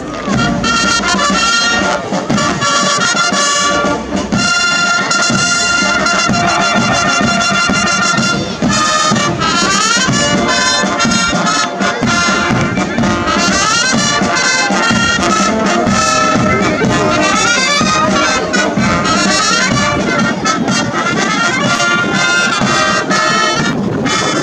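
Brass band playing a march, loud and steady, starting abruptly at the very beginning.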